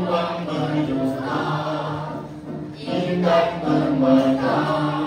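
A group of voices singing together in unison, in phrases with a short break about halfway through.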